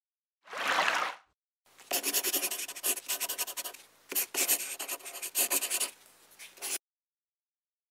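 Pen-on-paper writing sound effect: a brief swish about half a second in, then about five seconds of quick scratchy pen strokes that stop suddenly.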